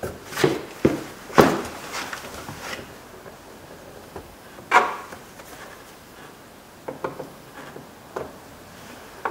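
Plastic door-panel trim being pried out with a flat-blade screwdriver: a series of sharp plastic clicks and snaps, the loudest about a second and a half in and another near five seconds, then a few lighter clicks near the end.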